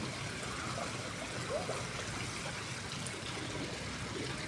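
Swimming-pool water trickling and lapping steadily at a low level.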